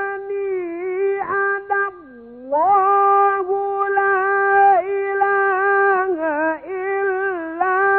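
A male Quran reciter's voice in melodic, drawn-out tajweed recitation: long held high notes with quavering ornaments. About two seconds in, the voice glides down and drops quieter for a moment, then climbs back up into more ornamented held notes.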